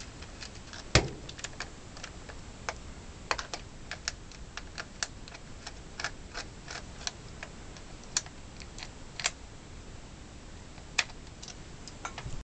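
Small, irregular clicks and ticks of a small Phillips screwdriver working screws out of a hard plastic case, with one louder knock about a second in.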